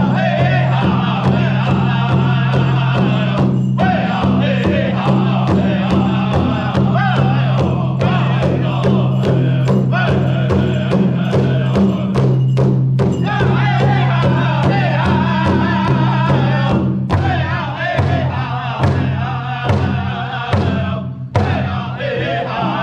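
Native American drum group singing together over a steady, evenly spaced drumbeat, a traditional dance song.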